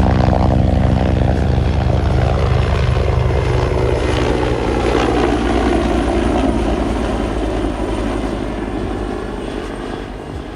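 Helicopter flying low overhead, its rotor beating loudly and steadily, then fading as it moves away near the end.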